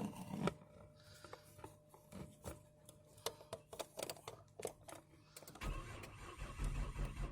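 A run of irregular clicks, then about five and a half seconds in the starter of a 2000 Nissan Quest cranks the engine for under two seconds without it catching, on a battery that is dead.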